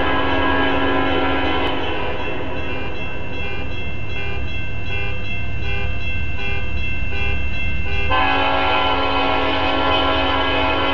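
Norfolk Southern freight locomotive's multi-chime air horn sounding for a grade crossing over the low rumble of the approaching train. One long blast ends about two seconds in, a second long blast starts near the end, and a crossing bell rings steadily in the gap between them.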